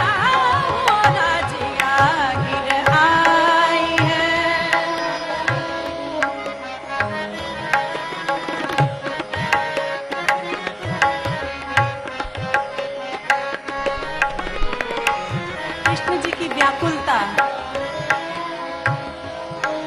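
Tabla playing a steady, lilting rhythm with gliding bass strokes under a harmonium melody, in a Hindustani light-classical kajri in raag Pilu. A sung phrase trails off in the first second or so, and the rest is an instrumental interlude.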